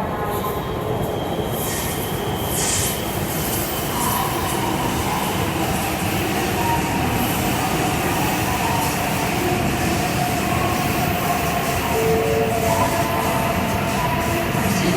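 Shinkansen train moving along a station platform: a steady running rumble with high squealing tones that come and go over it.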